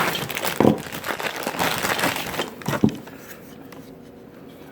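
Crinkling, rustling handling noise with many small clicks, which stops about three seconds in and leaves low room tone.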